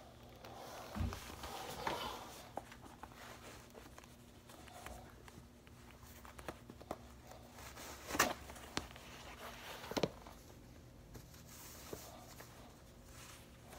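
Adidas Gazelle sneakers scuffing and tapping on a hard floor as they are handled on the feet, with sock fabric rustling. A few sharp knocks stand out, the loudest about eight seconds in and another near ten seconds.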